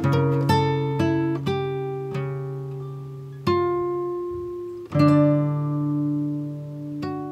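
Background music on plucked acoustic guitar: notes and chords struck every second or so and left to ring and die away, with the strongest attacks about three and a half and five seconds in.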